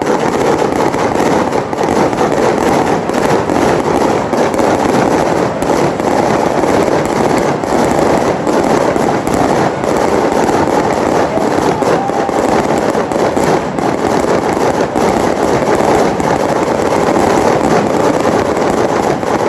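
Fireworks crackling in a dense, continuous barrage of rapid pops for nearly twenty seconds, stopping abruptly at the end.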